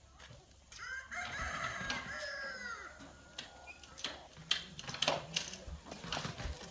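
A rooster crowing once, a long call of about two seconds, followed by a few sharp knocks and clicks.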